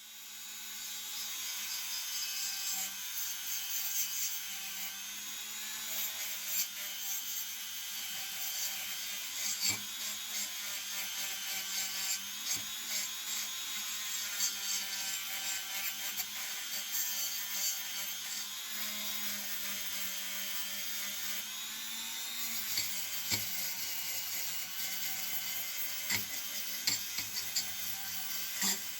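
Small high-speed electric power tool running continuously, its motor pitch dipping and recovering several times as the load changes, with scattered light clicks.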